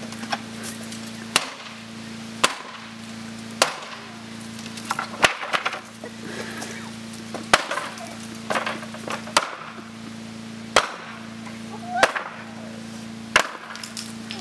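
Sledgehammer blows on a wooden pallet, about ten sharp strikes roughly every second or so, as the 2x4 stringers are smashed loose from the slats. Wood cracks and rattles after some of the blows.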